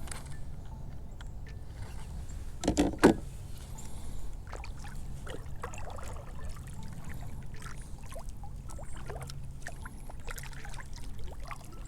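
Handling noise from a fishing kayak on calm water: a steady low rumble with scattered small clicks and light water sounds, and a louder double knock about three seconds in.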